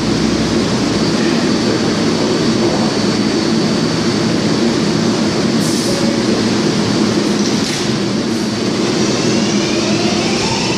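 R142A subway train standing at the platform, its equipment running with a steady hum, with a few brief hisses around the middle. In the last couple of seconds its traction motors start a rising whine as the train begins to pull out.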